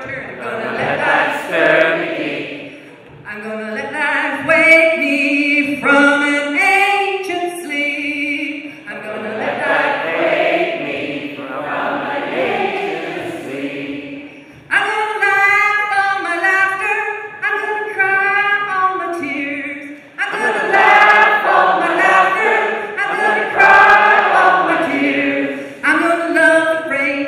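Unaccompanied call-and-response singing: a woman sings a phrase and a room of untrained voices sings it back as a group, in phrases of a few seconds with short breaks between them.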